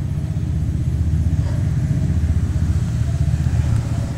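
A steady low engine rumble with a fast, uneven flutter.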